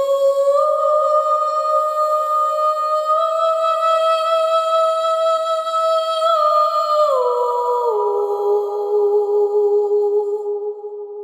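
Background music: a single humming, voice-like tone holding long notes that step slowly upward, then drop lower about seven seconds in.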